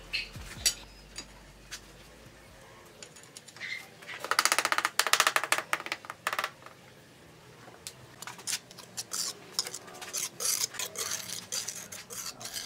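Steel trowel scraping and clicking on wet cement mortar and ceramic tile, with a rubber mallet tapping the tile top into place. The loudest part is a dense run of rapid scraping and clicking about four to six seconds in; scattered clicks and taps follow.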